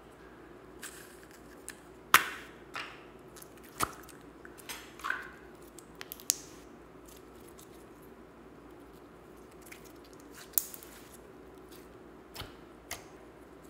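Hands squeezing and pressing slime in a plastic tub: scattered sharp pops and short squelches, about a dozen, the loudest a little over two seconds in, over a faint steady hum.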